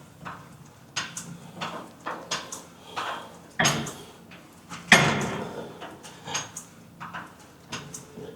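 Gym weights clanking: a run of sharp metallic knocks and clicks, with two louder bangs a little past the middle.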